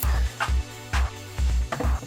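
Background music with a steady beat: a low kick drum about twice a second with sharp high percussion between.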